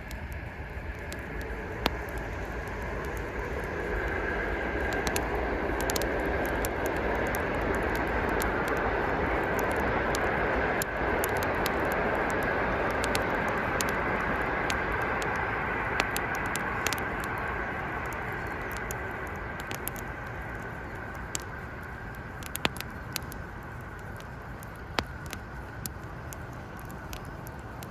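Wood campfire crackling, with frequent sharp pops and snaps over a steady hiss. The hiss swells to its loudest in the middle and fades away again.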